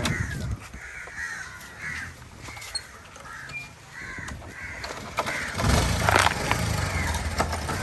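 Crows cawing, call after call. About five and a half seconds in, a low, steady engine comes in beneath them.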